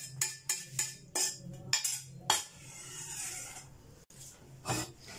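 Metal spoon clinking and knocking against a stainless steel pan several times in the first couple of seconds as the last of the jelly is scraped out onto a plate, then one more knock near the end.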